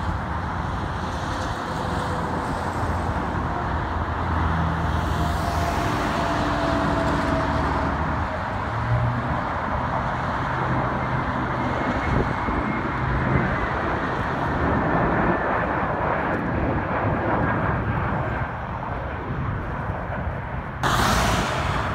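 Jet airliners on low final approach passing overhead: a steady broad jet-engine noise with faint whining tones that slide down in pitch as the aircraft pass. There is a short burst of hiss near the end.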